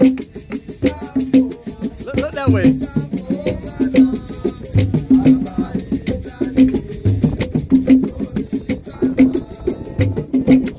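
Music with a steady beat: low bass notes pulsing under fast, even rattling percussion.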